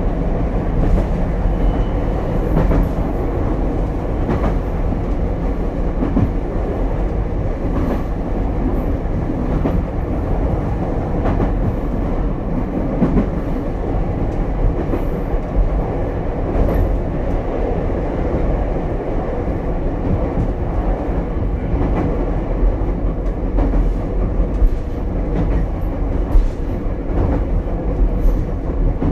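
Ichibata Electric Railway 7000-series railcar running between stations, heard from inside the car: a steady rumble of wheels on rail with scattered clicks over rail joints.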